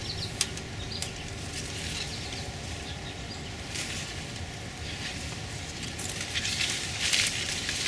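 Gooseberry bush rustling, with small irregular clicks and taps as berries are picked by hand, over a faint steady hum.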